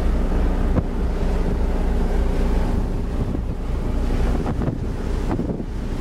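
Wind buffeting the microphone over the wash of surf, with a steady low engine hum underneath.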